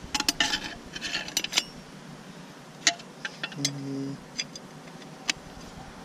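Steel clutch plates clinking and jingling metal-on-metal as they are dropped into a 4L60E transmission case: a quick cluster of clinks in the first second and a half, then a few single clicks as the plate settles.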